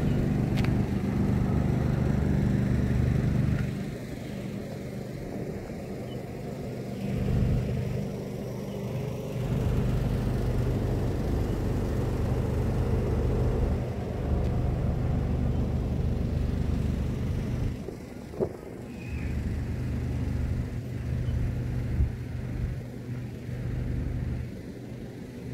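Outdoor wind buffeting the microphone in gusts, a low rumble that drops away and comes back several times, with a single short sharp click partway through.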